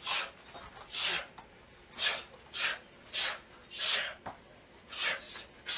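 Sharp, forceful hissing exhalations from a person striking during a Muay Thai combination drill, about eight short bursts at roughly one every half second to a second, one breath pushed out with each jab, elbow or knee.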